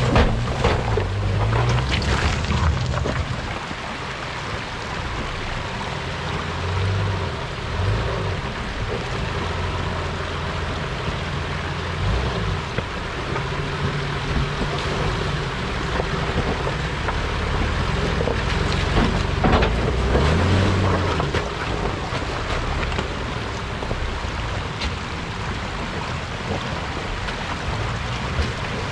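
Four-wheel-drive vehicles' engines running and revving as they crawl through a shallow rocky creek, tyres splashing through the water near the start and again about two-thirds through.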